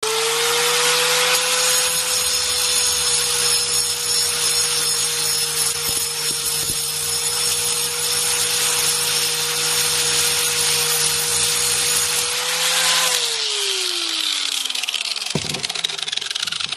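Angle grinder running at steady speed, its cutting disc grinding through an iPhone 7 with a harsh, loud grinding noise. About 13 seconds in the grinder is switched off and winds down, its pitch falling over two seconds, followed by a sharp click and fainter scraping.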